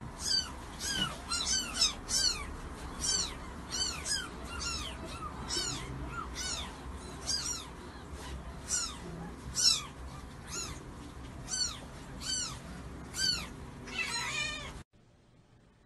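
Kitten mewing over and over, short high-pitched mews that rise and fall, about two a second, stopping abruptly near the end.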